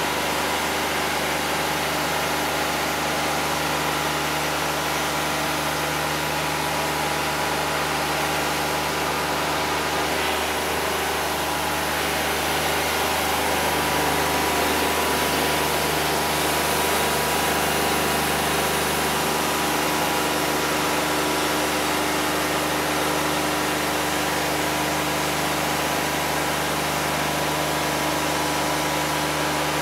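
Wood-Mizer LT50 Wide portable sawmill's engine running steadily, a little louder from about twelve seconds in until about twenty.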